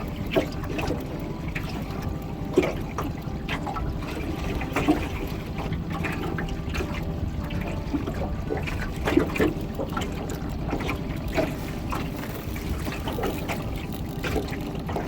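Water lapping and trickling against the hull of a small boat, with frequent small irregular splashes and plops over a low steady rumble.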